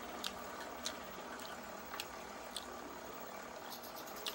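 Close-up chewing of a mouthful of rice and boneless danggit, with wet mouth smacks and about five sharp clicks spread through, over a steady background hiss.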